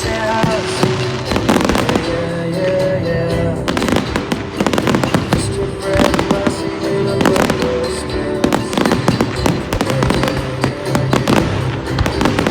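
Fireworks display: rapid bangs and crackling of aerial fireworks going off continuously over loud music.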